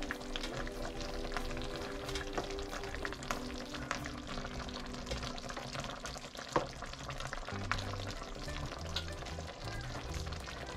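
Shrimp in a tomato and butter sauce sizzling in a frying pan, with scattered crackles, as a wooden spoon and a plastic spatula stir and scrape through them. Soft background music with sustained notes plays underneath.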